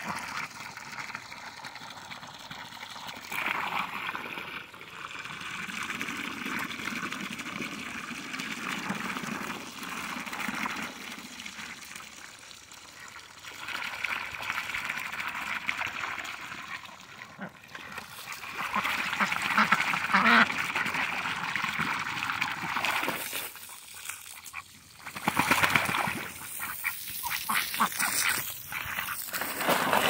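Domestic ducks quacking, with water trickling and splashing, busiest near the end.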